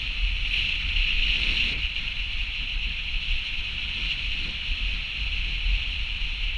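A car driving down a winding mountain road: a steady low rumble of road and engine with a steady hiss of wind and tyre noise over it.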